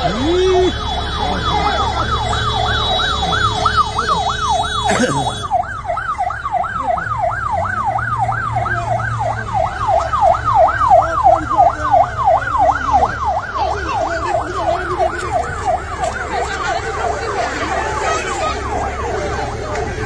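Police vehicle siren on a fast yelp, its pitch sweeping up and down about three times a second and fading somewhat in the last few seconds, over the steady rumble of idling engines. A single sharp knock comes about five seconds in.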